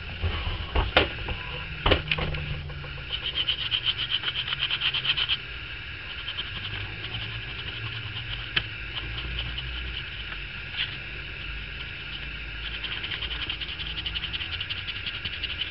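Bristle brush, nearly dry of oil paint, scrubbing over EVA foam in quick scratchy back-and-forth strokes, with a fast run of them about three to five seconds in. Two sharp knocks of handling come about one and two seconds in.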